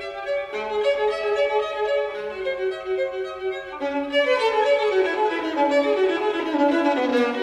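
Instrumental background music: a melody of held notes, with quick falling runs of notes in the second half.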